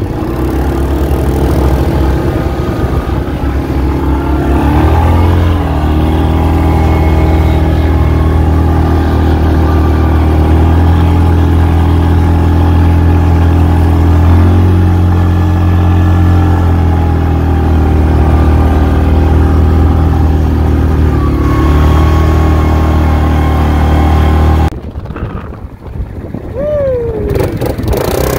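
ATV engine running loudly at steady throttle, its pitch shifting up and down a few times. About three seconds before the end the engine noise falls away sharply.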